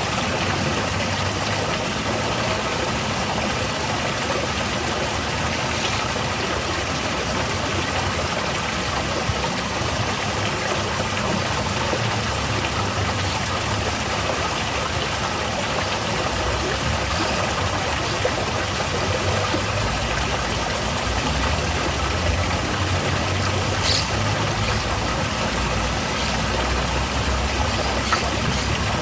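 Garden waterfall splashing steadily: an even, unbroken rush of falling water. A low rumble underneath swells in the last third, and there is a single small click a little past the twenty-second mark.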